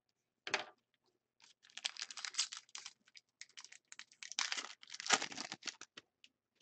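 Crinkling and rustling of a trading-card pack wrapper being torn open and handled: one sharp crackle about half a second in, then a dense run of irregular crackles that stops about six seconds in.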